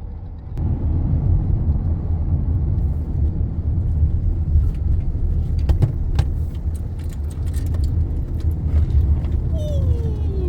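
Car driving heard from inside the cabin: a steady low rumble of engine and tyre noise on the road, with a couple of sharp clicks around the middle.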